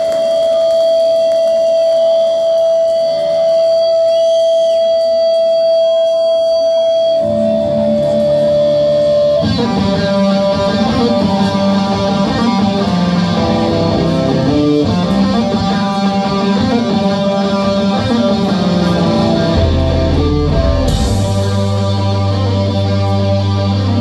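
A live rock band with distorted electric guitars. It opens on one long held guitar tone, more guitar comes in about seven seconds in, and the full band kicks in with a heavy riff at about ten seconds. Deep bass notes join about twenty seconds in.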